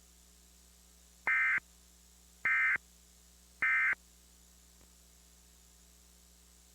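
Emergency Alert System end-of-message signal: three short bursts of buzzy, warbling SAME digital data tones, each about a third of a second long and a little over a second apart. They mark the end of the alert test. A faint steady hum sits underneath.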